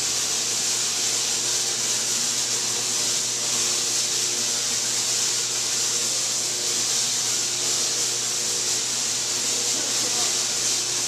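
Tesla coil firing: its spark discharges give a steady, loud buzzing hiss, with a low hum under it, as arcs strike out from the top terminal.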